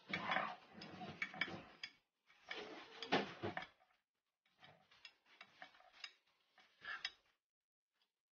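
Kitchen knife cutting through set ube gulaman in a glass baking dish, the blade clicking and scraping against the glass bottom in irregular runs. The runs stop about seven seconds in.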